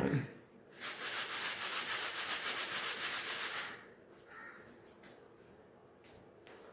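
Split moong dal grains rustling and rattling in a plastic sieve as it is shaken rapidly and rhythmically for about three seconds, sifting the fine powder from the broken dal, then the shaking stops. A few faint knocks follow.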